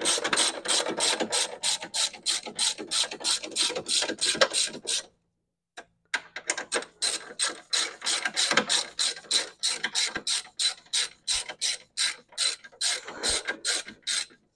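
Hand socket ratchet clicking in a quick steady run, about four clicks a second, as a bolt is wound down. The clicking stops for about a second partway through, then carries on.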